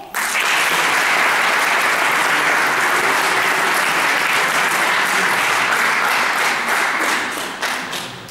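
A small group of children applauding. The clapping starts suddenly, holds steady, then thins into a few scattered claps near the end.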